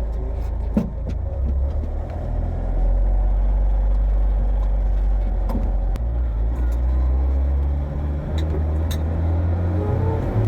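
Honda TN360 kei truck's small air-cooled two-cylinder engine running as it drives, its note stepping up and down a few times with changing engine speed, with a few short clicks.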